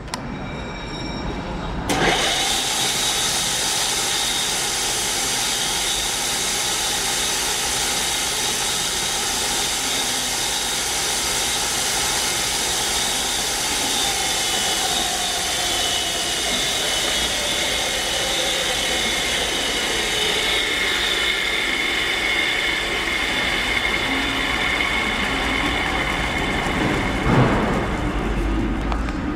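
Atlas ID/OD grinder running under power. It comes on suddenly about two seconds in, then runs steadily with a high whine over a rushing noise, and there is one sharp knock near the end.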